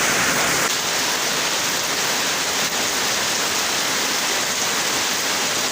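Heavy rain falling steadily: an even, continuous hiss of rain.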